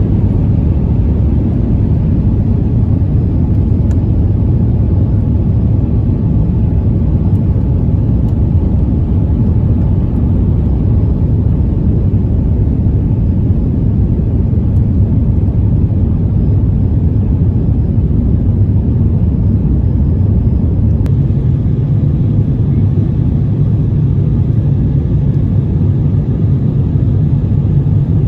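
Steady rumble of a jet airliner's engines and airflow heard from inside the passenger cabin, shifting slightly in tone about three-quarters of the way through.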